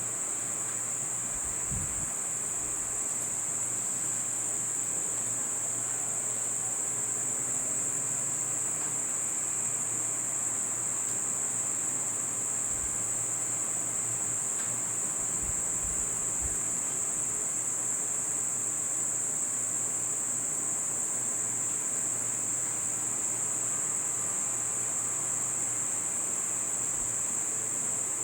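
A steady, high-pitched insect drone, like a chorus of crickets or cicadas, unbroken throughout.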